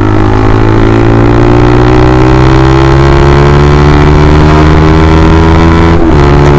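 Honda CBR150R's single-cylinder engine through a replica Austin Racing aftermarket exhaust, running loud and pulling with a slowly rising pitch. Near the end the sound breaks briefly and falls to a lower pitch: an upshift.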